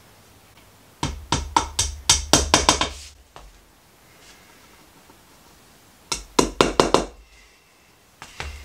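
Claw hammer tapping small wooden dowels into glued holes in a wooden furniture panel, knocking them in until they bottom out. A quick run of about a dozen taps comes first, then after a pause of about three seconds a shorter run of about six.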